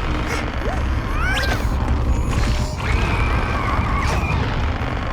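Cartoon sound effects: a continuous low rumbling crash, with short squeaky rising-and-falling calls about a second in and a wavering high whine from about three seconds in.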